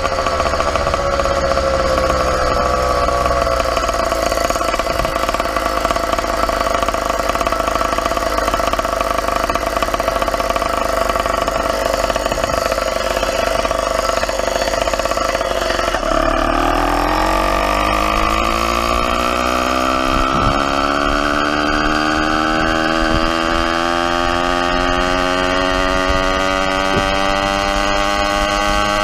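YD100 two-stroke motorized bicycle engine running while riding. Its pitch holds steady, drops sharply a little past halfway as the bike slows, then climbs steadily as it accelerates again.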